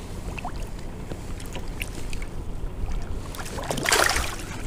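A brief splash of water about four seconds in as a smallmouth bass is released back into the lake, over a low rumble of wind on the microphone and a few small clicks and rustles.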